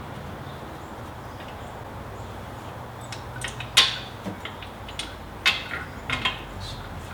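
Scattered metallic clicks and knocks of hand tools and car parts being handled, starting about three seconds in, the sharpest a little before four seconds. A low steady hum runs underneath.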